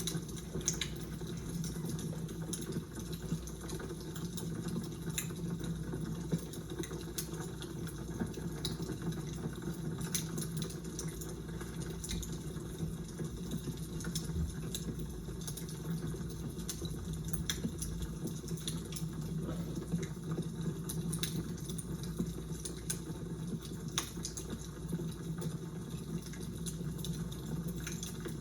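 Fire crackling: irregular sharp pops and crackles over a steady low rumble.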